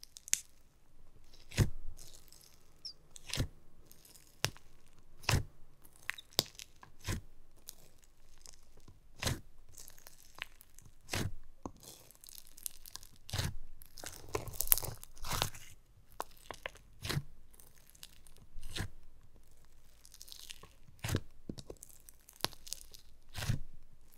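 Clear floam slime packed with small foam beads crunching and popping as fingers poke and press into it in a plastic tub: sharp pops every second or two, with a longer stretch of crackling crunch about halfway through.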